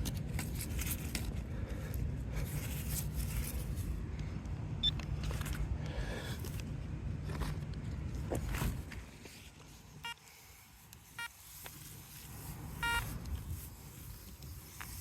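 Metal detector giving several short pitched beeps in the latter half as its coil passes over targets, after a stretch of steady low rumble with scattered light clicks.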